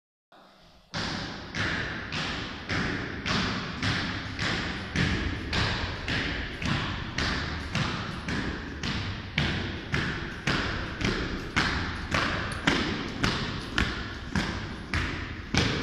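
Boots of a three-person firefighter honour guard marching in step on a hard church floor: a steady, slow beat of just under two steps a second, each step echoing through the church. The steps begin about a second in.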